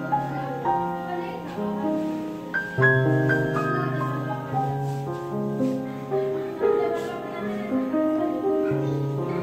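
Background music: a slow instrumental tune of held notes over a low sustained bass line.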